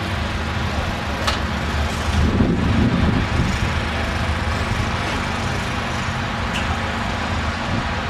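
Top Fuel dragster's supercharged V8 idling with a steady, deep rumble. The rumble swells briefly about two seconds in.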